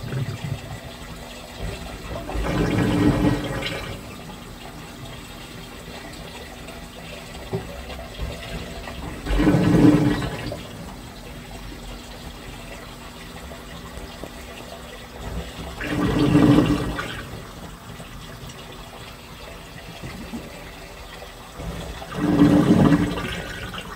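Washing machine in its wash cycle: water and clothes slosh in four surges, roughly one every six and a half seconds, over a steady quieter churn.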